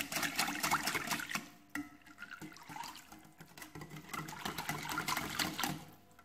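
Wire whisk beating a runny mixture of eggs, sugar, melted butter and lemon juice in a clear bowl: rapid wet clicks and splashes of the wires against the bowl. It goes quieter after about a second and a half, picks up again around three and a half seconds, and fades near the end.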